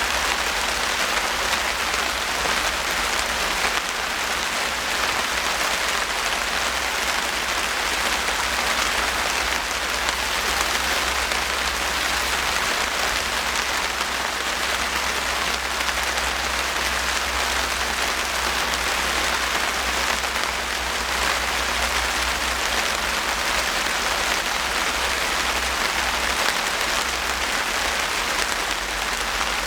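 Steady rain falling on outdoor objects, a dense, even hiss of many drops that holds unchanged throughout.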